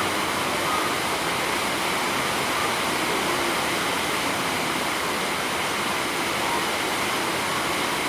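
A steady, even rushing noise, with a few faint short tones now and then.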